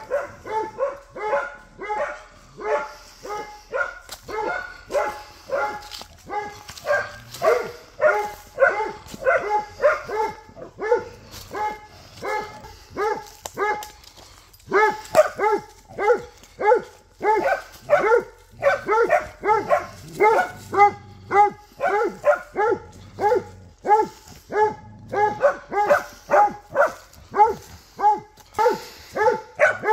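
A hunting dog baying at wild boar: short, loud barks repeated about two to three times a second, with a brief pause about halfway through.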